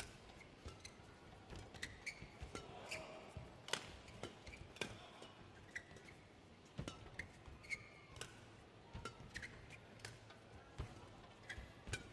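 Badminton rally: sharp cracks of rackets striking the shuttlecock about once a second, with short squeaks of shoes on the court mat between the shots.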